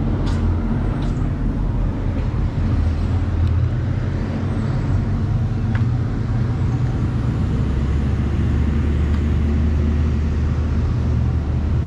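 Steady low rumble of an idling vehicle engine, with faint clicks over it.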